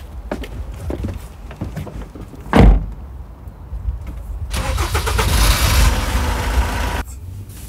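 A Citroën van's door slams shut about two and a half seconds in. Then its engine cranks and starts, running loudly for a couple of seconds before the sound stops suddenly.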